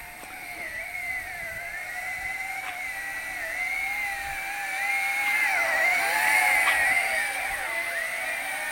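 WLtoys Q202 RC amphibian plane's small electric motor and propeller whining in flight, the pitch wavering up and down with throttle and passes, growing louder about five to seven seconds in.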